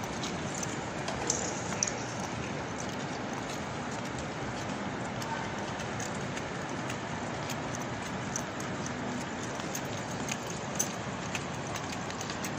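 Steady outdoor city background noise, like distant traffic, with scattered faint clicks through it.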